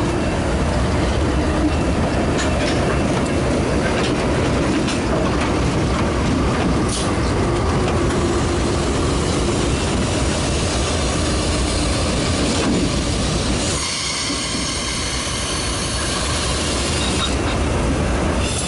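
GE B23-7 diesel locomotives passing close by, their diesel engines running over steady wheel-on-rail noise. About three-quarters of the way through, a high metallic wheel squeal comes in for a few seconds.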